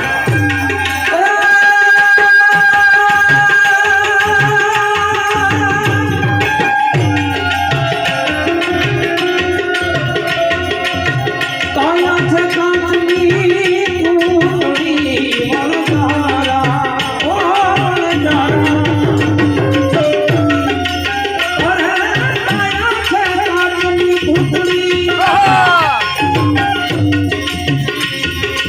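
Gujarati santvani devotional music: tabla keeping a steady beat under sustained harmonium melody notes.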